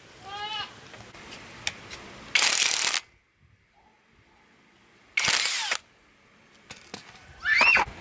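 Cordless impact wrench running in short bursts of about half a second each, spinning a socket on the clutch nut of a Ryobi grass trimmer engine to loosen it.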